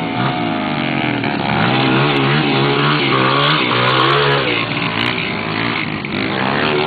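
Dirt bike engine revving up and down as it rides over a rough dirt trail, its pitch rising and falling every second or so.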